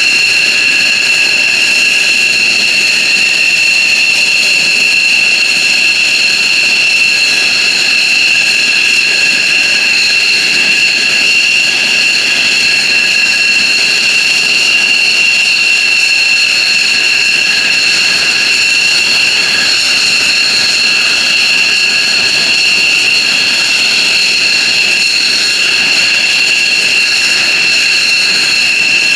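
F-15J Eagle fighter's jet engines running steadily on the ground after start-up: a loud, even, high-pitched whine of several held tones over a jet rush, with no rise or fall in pitch.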